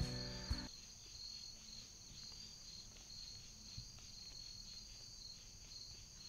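Background music cuts off less than a second in, leaving a steady, high-pitched evening insect chorus, one layer of it pulsing rapidly.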